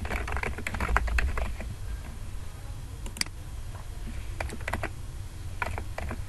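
Typing on a computer keyboard: a quick run of keystrokes for about a second and a half, then a few scattered keystrokes, over a low steady hum.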